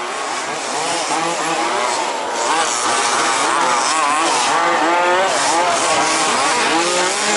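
Several 1/5-scale RC buggies' small two-stroke petrol engines racing together, each revving up and down with the throttle, their overlapping pitches rising and falling.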